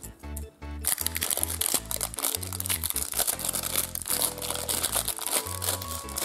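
Plastic packaging crinkling and crackling as it is unwrapped, starting about a second in, over background music with a steady bass beat.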